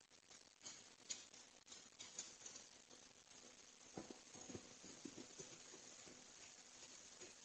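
Near silence: a faint steady hiss, with a few soft taps about four to five and a half seconds in, the light footfalls of a skunk walking across a wooden deck.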